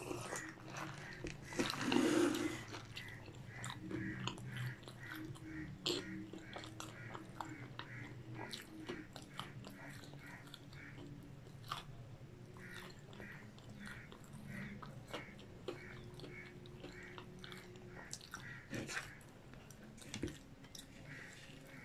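Close-miked chewing of a chicken tortilla wrap and fries, a regular run of about two chews a second, after a brief noisy sip from a paper drink cup about two seconds in. A few sharp clicks near the end.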